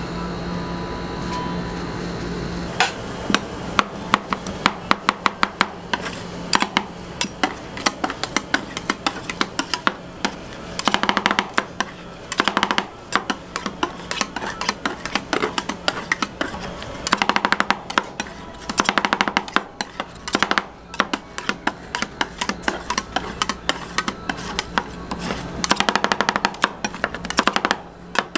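Metal spatulas chopping and scraping on a cold steel plate as ice cream base and fruit are mixed for rolled ice cream: rapid sharp clicks, several a second, with a few longer stretches of scraping. A steady hum comes before the chopping starts about three seconds in.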